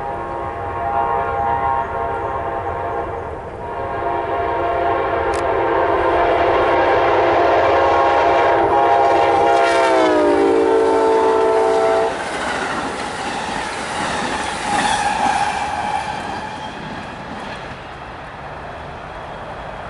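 Amtrak P42DC diesel locomotive passing at speed, sounding its five-chime air horn in long blasts. The chord drops in pitch as the locomotive goes by and cuts off sharply, leaving the rumble and clatter of the passing train, which fades.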